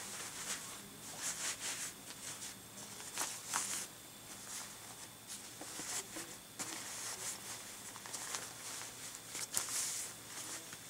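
Doll's jacket fabric rustling and rubbing in short, irregular bursts as the jacket is handled and worked onto the doll, with a few faint clicks.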